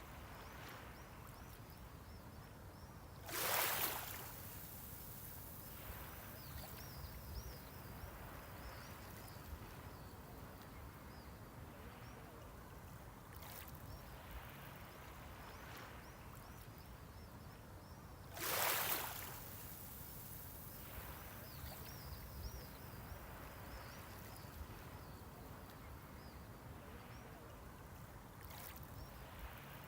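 Small sea waves breaking on the shore: a low, steady wash with two short, louder splashes, one a few seconds in and another about fifteen seconds later.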